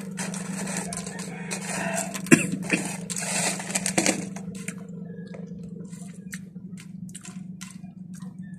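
Foil chip bag crinkling and rustling as a hand digs into it, with a couple of sharp snaps, then Red Chili chips being bitten and chewed, heard as a run of short crisp cracks. A steady low hum runs underneath.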